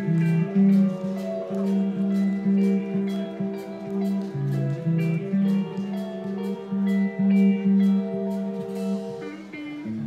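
Progressive metal band playing live: clean guitar lines in long held notes over a steady drum and cymbal beat. The cymbals drop out and the parts change near the end.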